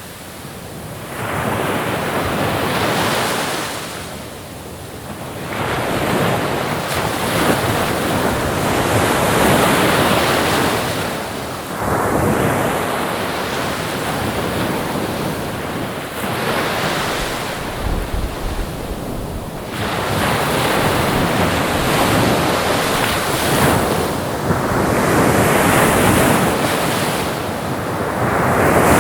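Ocean waves breaking and washing in, the surf swelling and falling away every few seconds, with wind noise.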